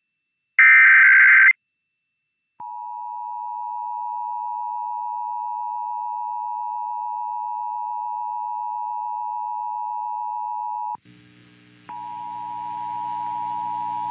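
Emergency Alert System broadcast tones. Near the start comes the last screeching burst of the SAME digital header. About a second later the two-tone EAS attention signal (853 and 960 Hz) starts and holds steady for about eight seconds. It cuts off sharply, and after a brief low background hum it starts again about a second later over other broadcast audio.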